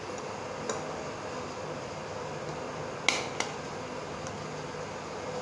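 Steady background hum in a small room, with a faint click about a second in and two sharp clicks close together about three seconds in.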